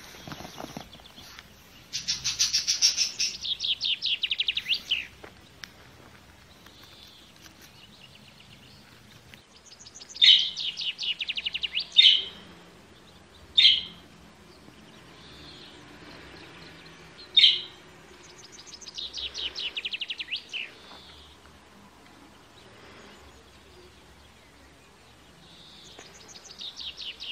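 Young budgerigars calling: several bursts of rapid, trilled chirping, with a few single sharp chirps in between.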